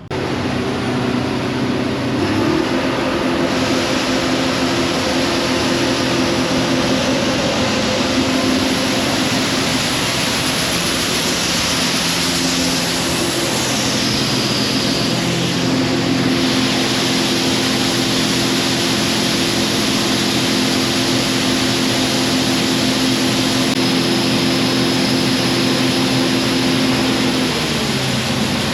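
Heavy diesel farm-machinery engine running steadily under load, its pitch shifting slightly about two seconds in and again near the end.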